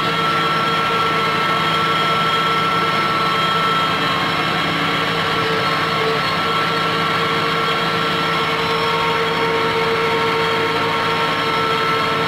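Antonio Carraro 10400 TTR tractor running steadily, heard from inside the cab, with a constant whine over the engine note.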